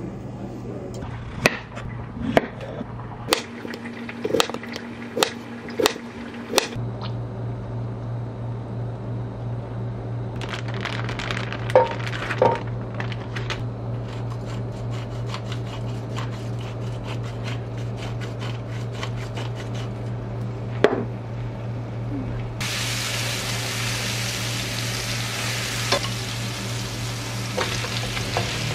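A run of sharp clinks and knocks over a steady low hum, then, about two-thirds of the way through, minced garlic and chili flakes start sizzling in hot oil in a nonstick frying pan and keep on sizzling.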